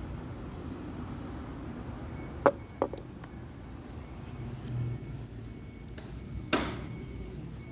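Sharp knocks over a steady low hum: two quick ones, then a louder one with a short ring near the end. A faint high beep repeats in short, even dashes.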